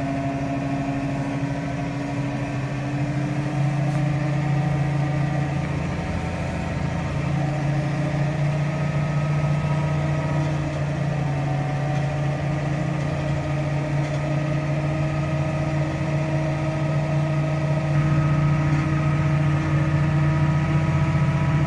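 Tractor's diesel engine running steadily as it drives through floodwater, heard from inside the cab.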